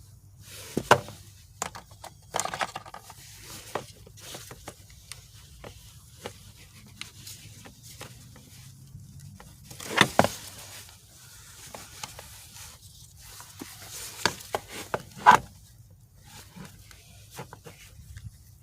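Hand work on a car's shifter parts: scattered clicks, knocks and rustling of tools and metal parts being handled, with the sharpest knocks about a second in, around ten seconds in and about fifteen seconds in.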